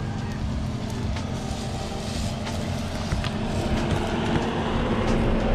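Maruti Suzuki Jimny's engine running at low speed as it crawls up a dirt track, with a Mahindra Thar's engine close behind; the sound gets slightly louder as they approach.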